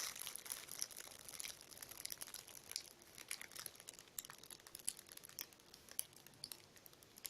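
Faint, irregular crinkling and ticking from folded polyurethane-foam squishies slowly re-expanding, with a short louder rustle at the very start.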